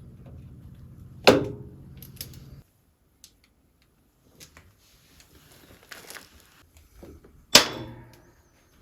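Two loud, sharp knocks about six seconds apart, each ringing out briefly. A low hum runs under the first two and a half seconds, and a few light clicks fall between the knocks.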